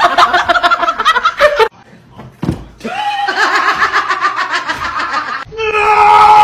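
A person laughing hard in quick, breathy pulses, stopping short; after a brief gap, more laughter. Near the end a long, steady high-pitched note sets in.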